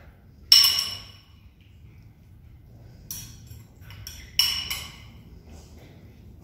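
A metal spoon clinking against glass dishes while spooning ground-meat filling: a sharp ringing clink about half a second in, lighter taps and scrapes around three seconds, and another ringing clink a little after four seconds.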